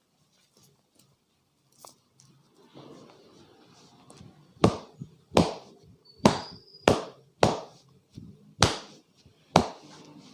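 Massage strikes: a barber's hands slapping and chopping on the client's body seven times at an uneven pace, after a few seconds of soft rubbing.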